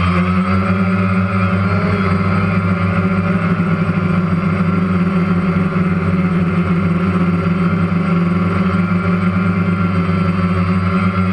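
Multirotor drone's electric motors and propellers running, heard from the camera it carries: a steady hum with a higher whine that wavers slightly in pitch.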